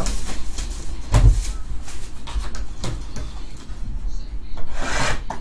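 A cardboard trading-card box being handled and opened: scattered light clicks and knocks of cardboard, a firmer knock about a second in, and a short rustling swish near the end.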